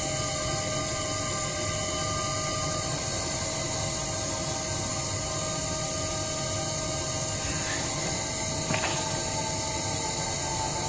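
Electric potter's wheel running at a steady speed: a constant mechanical whir with a few steady whining tones.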